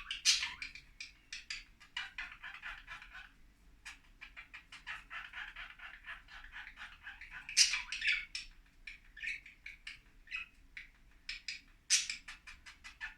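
Budgerigars chattering and warbling: a fast, unbroken run of clicks and short chirps, with louder sharp calls about halfway through and again near the end.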